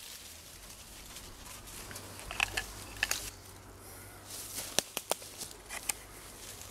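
Knife blade cutting into a wooden stick: a few sharp, separate snicks, scattered over a few seconds.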